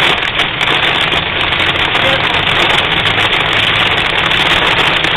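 Heavy storm rain beating on a car's roof and windshield: a loud, dense, steady hiss heard from inside the car.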